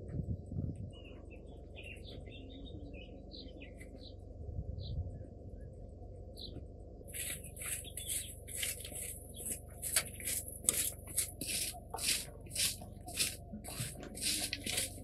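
Birds chirping in short calls, then about seven seconds in a bundled-twig broom starts sweeping a dirt floor in quick scratchy strokes, about two a second.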